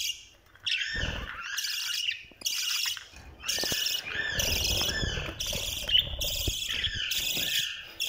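A group of budgerigars chattering and chirping almost without a break, a dense run of high, scratchy calls, with some low rustling and knocks underneath.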